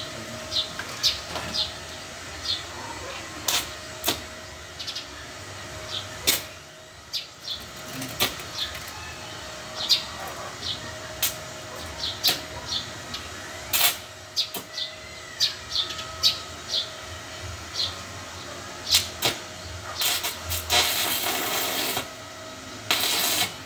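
Electric arc welding from a small inverter welder: the arc crackles in short, sharp strikes and sputters, with a longer run of crackling hiss near the end. Birds chirp throughout.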